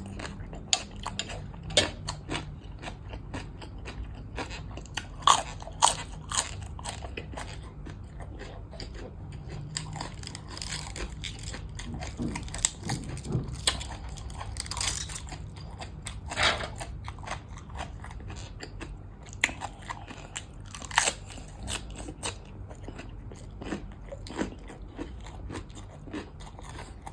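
A person biting into and chewing crisp fresh okra, irregular crunches and crackles.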